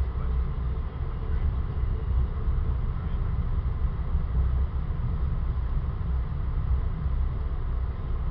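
Steady low rumble of a passenger train running at speed, heard from inside an ex-Metroliner cab car: wheels on the rails and the car's running noise.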